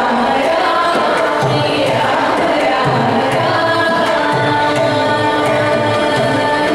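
A large group of violins playing a Carnatic melody together, with held and sliding notes, over a steady hand-drum accompaniment.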